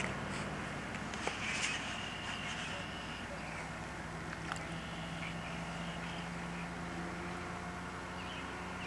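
A steady low hum under a faint hiss, with a few small clicks in the first five seconds.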